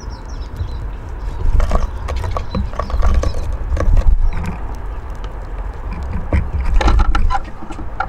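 Eurasian siskins at a wooden bird table: quick clusters of taps and pecks, with a few short chirps, from about a second and a half in and again near seven seconds, over a steady low rumble.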